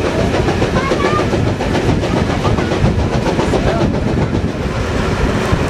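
Train running on the rails: a steady, loud rumble with a rapid rattle of wheels over the track.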